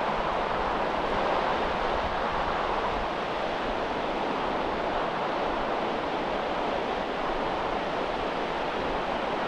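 Steady wash of shallow surf on a flat sandy beach, a continuous even rush of water with no distinct breaks.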